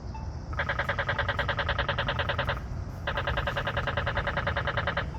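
Polara accessible pedestrian push button sounding a rapid ticking tone, about ten ticks a second, in two runs of about two seconds each with a short gap between them, over steady low traffic rumble.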